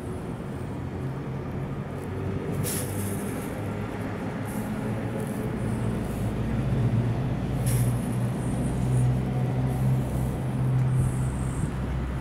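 Tabby-and-white cat purring steadily as it is scratched on the head, a low rumble that grows louder about halfway through. There are two brief rustles.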